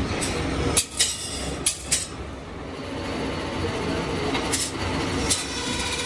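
Old belt-driven metal lathe running with a steady rumble, broken by a few sharp metal clanks as it is worked by hand: several in the first two seconds and a couple more later.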